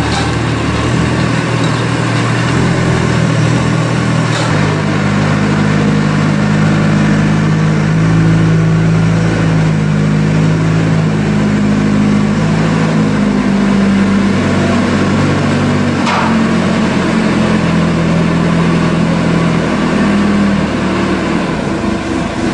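Merlo telehandler's diesel engine running under load, its pitch rising and falling as the machine manoeuvres and lifts a stack of concrete wall panels on its forks. Two short knocks sound over the engine, about four seconds in and again around sixteen seconds.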